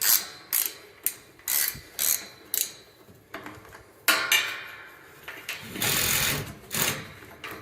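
Ratchet wrench clicking through short strokes about twice a second, loosening a fitting. Two longer rasping noises follow about four and six seconds in.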